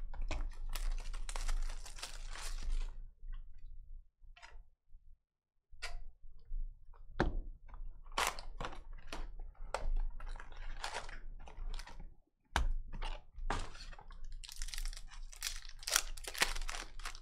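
Cardboard trading-card hobby boxes being slid and handled, then a box opened and its wrapped card packs crinkling and clicking as they are pulled out and stacked. Scrapes and rustles come in short spells with a brief quiet pause about four seconds in, and the crinkling is densest near the end.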